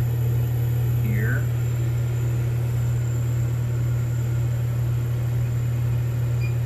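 Steady low electric hum of a laser engraver's air-assist and water-cooling pumps running, even in level throughout.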